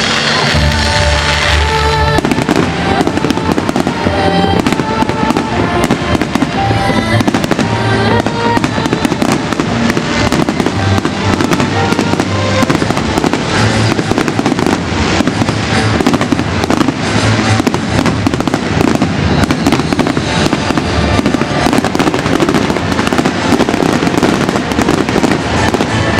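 Fireworks display: a dense, continuous barrage of crackling bangs from about two seconds in, over the show's music.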